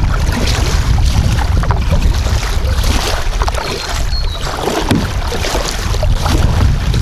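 Double-bladed kayak paddle dipping and splashing with each stroke, water lapping under the hull as the tide comes in, over a constant low rumble of wind on the microphone.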